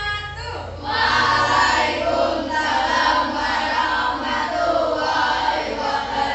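A class of children chanting or singing together in unison, many voices at once, louder from about a second in.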